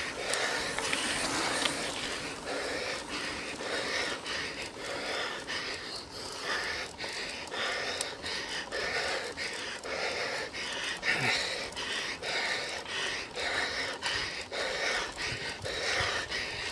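A cyclist breathing hard and rhythmically while pedalling, heavy panting from the effort of climbing a steep hill on the bike.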